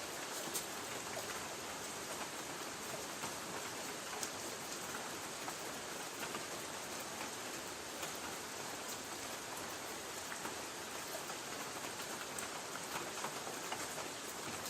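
Light rain pattering on a tin roof: a steady hiss of rainfall with many small scattered drop ticks.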